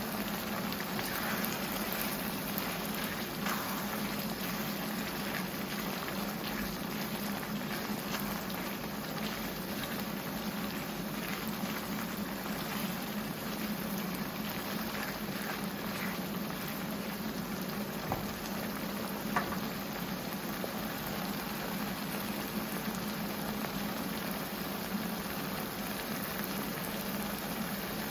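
Tomato-and-spice stew base bubbling steadily in the pot, with one short tick about two-thirds of the way through.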